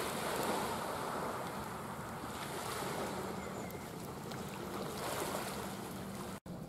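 Sea waves washing steadily on a beach, with some wind on the microphone. The sound drops out briefly near the end.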